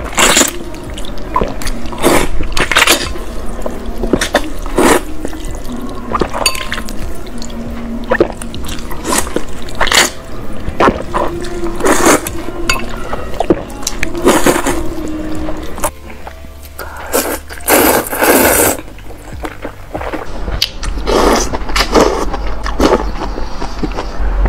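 Repeated wet slurps of translucent glass noodles being sucked up out of a bowl of spicy soup, over background music.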